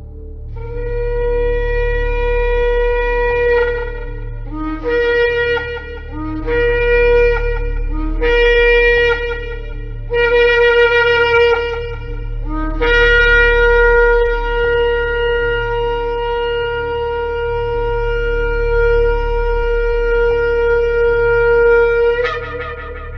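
Shofar (ram's-horn trumpet) blown in a series of blasts: one long note, four shorter blasts that each start low and jump up to the main note, then a long held blast that breaks upward in pitch near the end.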